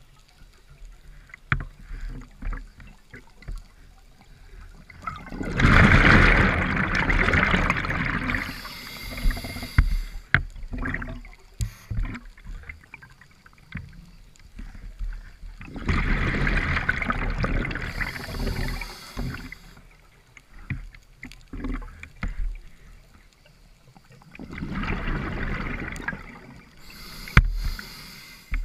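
Scuba diver breathing through a regulator underwater: three loud bursts of exhaled bubbles about ten seconds apart, the first two followed by a short high hiss, with faint gurgling in between.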